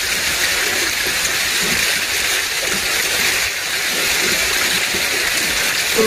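Steady rain falling on a nylon tarp shelter and the surrounding forest, an even hiss with no change in level.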